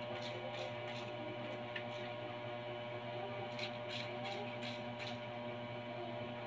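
Steady electrical mains hum made of several steady tones, with a few faint light ticks about halfway through.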